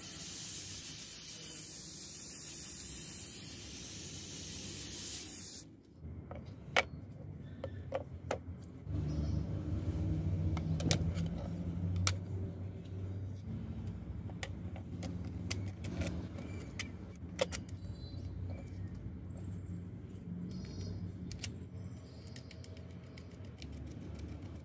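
A steady spray-paint hiss for the first six seconds or so, cutting off suddenly. Then scattered clicks and taps of a plastic computer cooling fan being handled and set against a plate, over a low steady hum.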